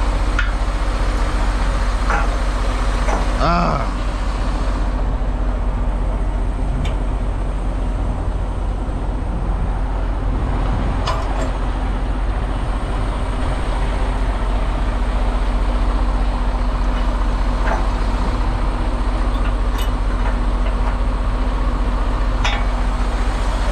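Semi tractor's engine running steadily, heard as a constant low hum, with a few short clicks scattered through it.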